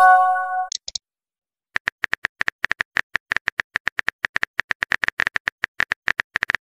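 Texting app sound effects: a short chime of a received message at the start, then a fast run of keyboard typing clicks, about eight a second, from about two seconds in to the end.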